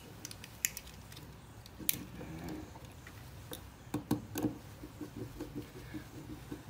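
Faint, scattered clicks and scrapes of a small screwdriver turning the terminal screws of a push-button light switch as wires are fastened to it, with a few sharper clicks about two and four seconds in.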